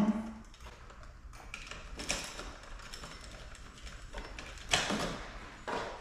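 Light clicks and scrapes of a wire being worked onto a terminal stud of a three-way light switch by hand, with a sharper click a little before the end.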